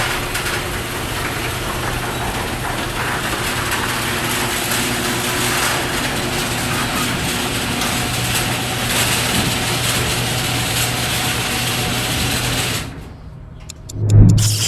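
Electric garage door opener running steadily with a low hum as the door rises, stopping about thirteen seconds in. A loud low thump follows near the end.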